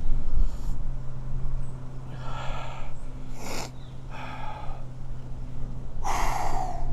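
A man breathing hard: four heavy, breathy gasps a second or so apart, the last the loudest, over a steady low hum.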